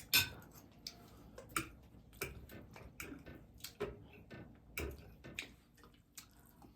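Close-up eating sounds: irregular short clicks and smacks of chewing, about one or two a second.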